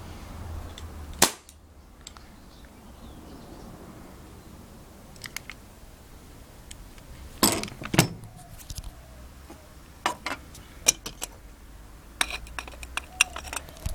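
Airsoft Hi-Capa .45 gas-blowback pistol firing: a sharp crack about a second in, two more about half a second apart near the middle, then a run of lighter sharp clicks and taps near the end.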